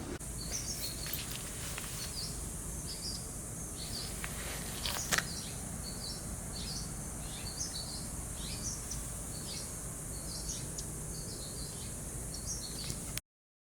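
Short bird chirps repeating every half second to a second over a steady high hiss of outdoor ambience, with one click about five seconds in; everything cuts off suddenly near the end.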